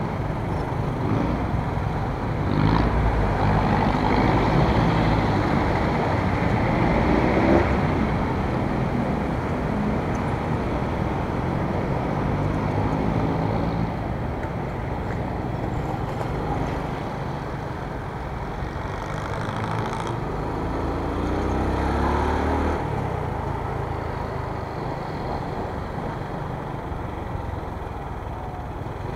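Dual-sport motorcycle engine running in city traffic, heard from the bike itself. It revs up in rising sweeps as it pulls away, a few seconds in and again about 22 seconds in, over a steady traffic rumble.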